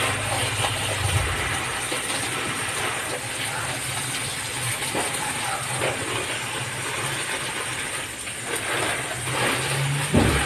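Water from a garden hose spraying and splashing onto potted plants and the concrete ground: a steady hiss. A low hum fades out about a second in and comes back near the end, where there is a short thump.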